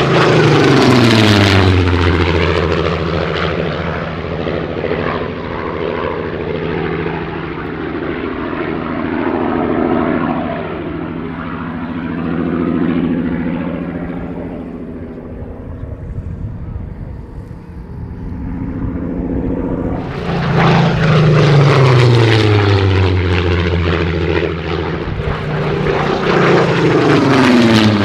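Supermarine Spitfire Mk.XVIII's 37-litre Rolls-Royce Griffon V12 engine and propeller during low passes. Its pitch drops as it passes close at the start, it fades to a more distant drone, then it comes back loud from about 20 s in with the pitch falling again as it goes by.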